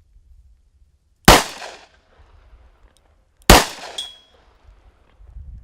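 Two shots from a .357 Magnum handgun firing 158-grain jacketed soft point rounds, about two seconds apart, each with a sharp crack and a short echo; a brief high ring follows the second shot.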